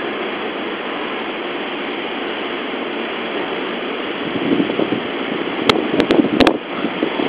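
Steady hum of a Seibu 3000 series electric train standing at the platform, mixed with station noise. About four seconds in it turns rougher and louder, and near the end a run of sharp knocks and crackles breaks in.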